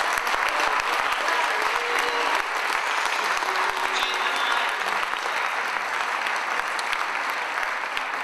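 Audience applauding, a dense, steady clatter of many hands clapping that eases slightly near the end.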